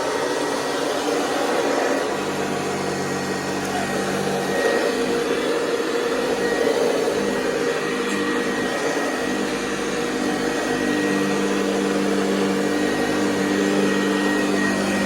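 Hoover Convertible 704 upright vacuum cleaner running steadily with its purr. A lower hum joins in for a couple of seconds about two seconds in, and again from about ten seconds in.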